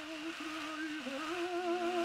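Tenor voice on an early acoustic-era recording, singing held notes with a wide vibrato and a quick ornamental turn about a second in, over steady surface hiss.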